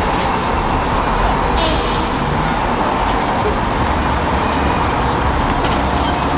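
Steady city street traffic noise from cars, buses and scooters moving through a busy intersection.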